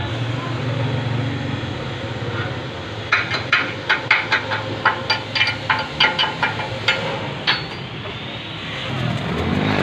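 Workshop sound with a steady low motor hum. Between about three and seven and a half seconds in there is a run of about a dozen sharp metal-on-metal taps, around three a second and unevenly spaced. Near the end an engine rises in pitch.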